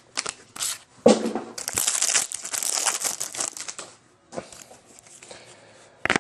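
Glossy baseball trading cards being handled and slid against one another by hand: a dense crinkling rustle from about a second in to about four seconds, then softer, scattered card handling.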